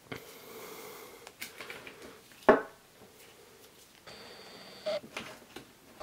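Hands handling a watch and its case on a desk, with a sharp knock about halfway through. Twice, once near the start and once late on, a camera's autofocus motor whirs briefly as the lens hunts for focus.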